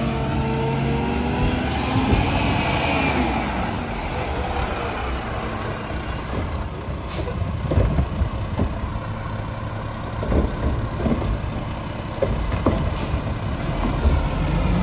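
Mack LR garbage truck's engine pitch rises and then drops as it pulls up, followed by an air brake hissing about five seconds in. Then a series of clunks and knocks as its Curotto-Can automated arm works at a trash cart.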